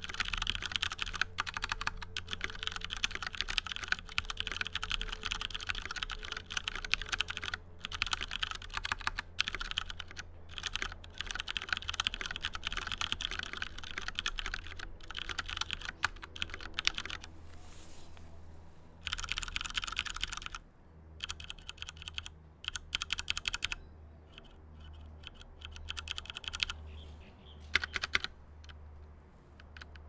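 Typing on a Fnatic Streak gaming mechanical keyboard with Cherry MX Brown tactile switches and thin ABS keycaps: a rapid stream of keystrokes that sound quite hollow. The typing stops briefly a bit past halfway, resumes in a short burst, then thins to slower, scattered key presses.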